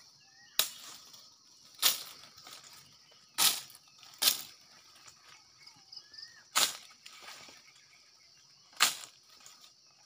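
Machete chopping a dried palm frond: six sharp chops at uneven intervals.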